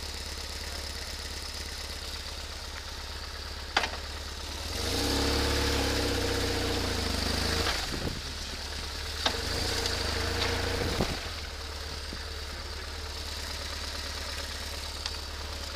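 Motorcycle engine idling steadily. It rises in pitch and volume for about three seconds, starting around five seconds in, and again more briefly around ten seconds, with a few sharp clicks along the way.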